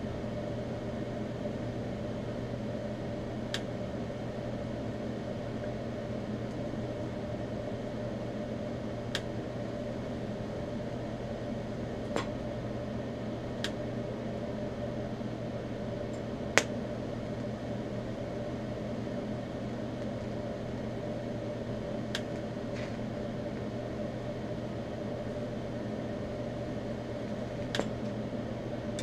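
Eastwood TIG 200 welder running through an autogenous TIG butt weld on thin mild steel sheet: a steady hum made of several evenly spaced tones. About eight sharp ticks are spread through it, the loudest a little past the middle.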